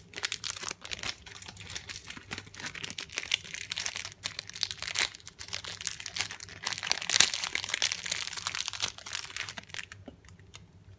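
Thin plastic wrapper of a packaged crepe roll crinkling and crackling as it is pulled open by hand, loudest about seven seconds in and dying down near the end.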